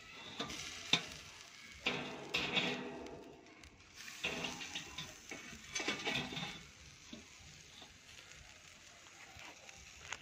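Stingray sizzling in a wire grill basket over hot charcoal, in several bursts, with sharp metal clicks from the basket on the kettle grate.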